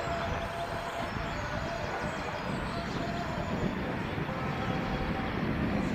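Outdoor hilltop ambience: a steady low rumble of distant town traffic with faint voices nearby and a faint steady tone held throughout.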